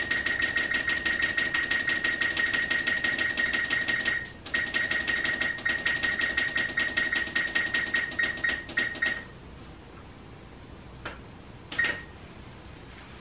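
A kitchen stove's electronic control panel beeping rapidly, several beeps a second, as its clock is being set. The beeps come in two long runs with a short break about four seconds in, then a single beep near the end.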